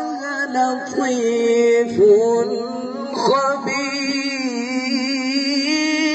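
A male qari reciting the Quran in melodic tajweed style into a microphone, stretching syllables into long held notes with wavering ornaments and sweeping up in pitch about two and three seconds in.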